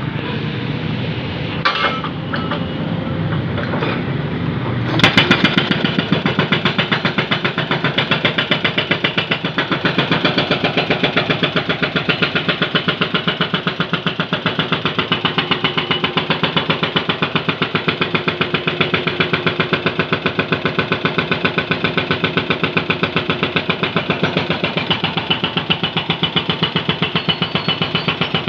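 Jonyang JY623E excavator's engine running, then about five seconds in its hydraulic breaker starts hammering on road pavement in a fast, steady rhythm.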